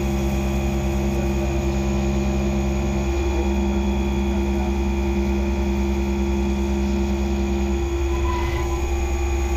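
Skyfire SVM-2 CNC mill machining aluminium under flood coolant: the spindle and axis drives hum steadily with several held whining tones under the hiss of coolant spray and the cutting. One tone stops about three seconds in and another near the end as the cut changes.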